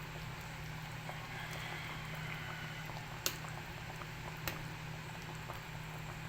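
Food cooking in a pan on the stove: a steady bubbling sizzle over a low hum, with two small clicks about three and four and a half seconds in.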